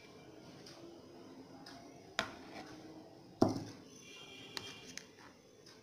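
Quiet handling of a cup and plastic mixing bowl as a cupful of thick palm-fruit pulp is emptied in: two sharp knocks about a second apart, the second louder and lower, then a few faint clicks.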